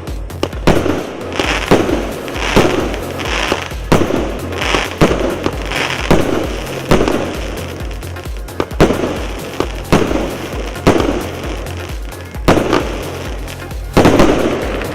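A СС7384 "Elixir of Happiness" firework cake firing shot after shot, a sharp bang about once a second, with a loudest burst near the end, over background music.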